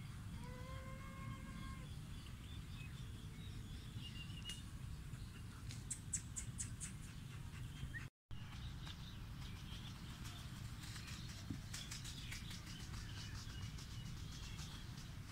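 Outdoor ambience: a steady low rumble with small birds chirping in quick runs of short, high chirps, and a single held tone about a second and a half long near the start.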